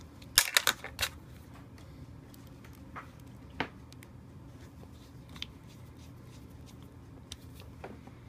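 Small screwdriver and screws working on a laptop hard drive's metal caddy as the screws go back in: a quick cluster of sharp clicks in the first second, then scattered light ticks and taps, over a low steady hum.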